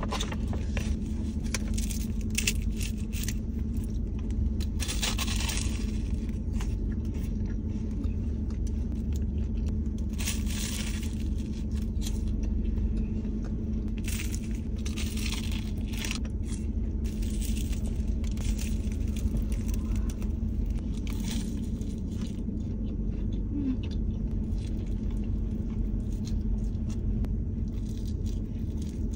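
Paper wrapper crinkling and crunchy bites and chewing of a flaky cromboloni (round laminated croissant pastry), in scattered short crackly bursts. Under it runs a steady low rumble inside a car.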